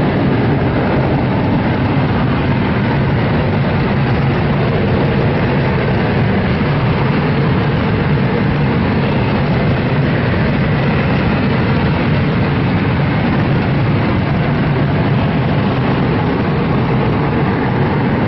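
J-20 stealth fighter's twin jet engines running on the ground, a loud, steady rushing noise that holds without change.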